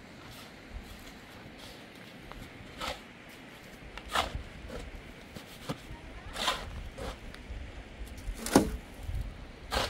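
A steel shovel scraping and scooping into a pile of sand and cement mix on hard ground: about five sharp scrapes a second or two apart, the loudest near the end.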